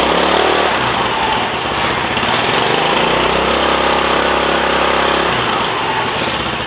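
GY6 150cc single-cylinder four-stroke engine of a Yerf-Dog go-kart running on a newly fitted carburetor, the revs held up for a couple of seconds and dropping back about five seconds in. It runs smoothly, a purr, now that the new carburetor is on.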